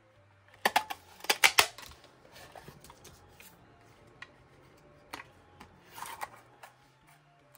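Handheld square paper punch pressed down through card stock: a quick run of sharp clacks about a second in, then softer clicks and paper rustling as a card is slid into the punch.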